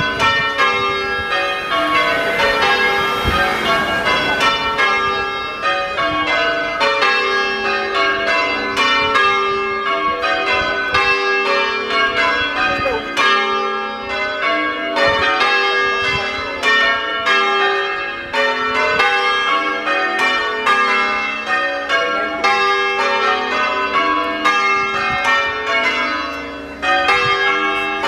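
Change ringing on a ring of five church bells, tenor 11 cwt 1 qr 4 lb in G sharp: an even, continuous stream of bell strikes following one another in turn, each ringing on under the next.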